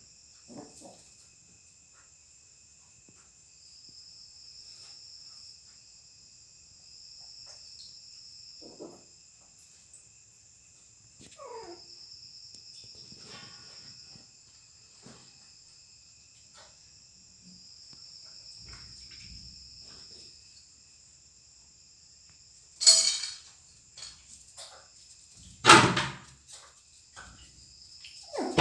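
Steady high chirring of crickets, swelling in pulsing stretches every few seconds. A kitten gives a short falling mew about a third of the way in, and two loud knocks or thumps come near the end, the loudest sounds.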